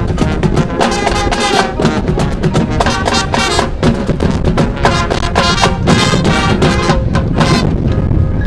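High school marching band playing: brass chords over drums and percussion hits. The brass cuts out near the end.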